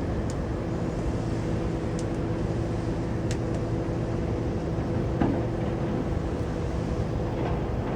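Caterpillar bulldozer's diesel engine running steadily under work, with a few short sharp clicks and a louder knock about five seconds in.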